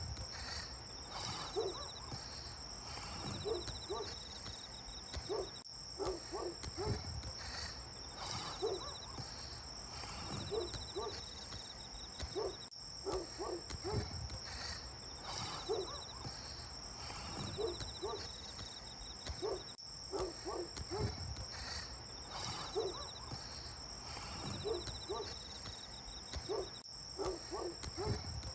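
Night insect chorus: a steady high-pitched cricket-like trill with a pulsing chirp about every two seconds, and short lower calls scattered through. The whole pattern repeats about every seven seconds, like a looped ambience recording.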